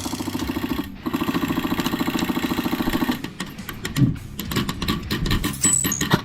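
Airsoft electric gun firing on full auto: a fast, even buzz of shots in two long bursts with a short break just before the one-second mark. After about three seconds it gives way to scattered, irregular snaps and clicks of single shots and BB hits.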